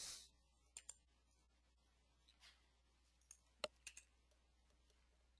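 Near silence broken by a few faint clicks: a pair about a second in and another pair a little past the middle.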